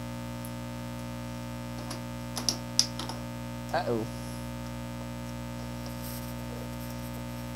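Steady electrical mains hum, with a few sharp plastic clicks and knocks about two and a half seconds in as the LCD monitor is gripped and turned on the desk, and a short grunt of voice about a second later.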